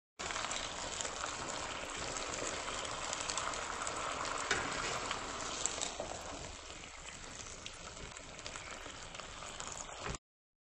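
Salmon chunks and vegetables sizzling in a hot wok as they are stir-fried and tossed with a metal spatula, with a few light clicks. The sizzle eases slightly after about six seconds and cuts off suddenly just before the end.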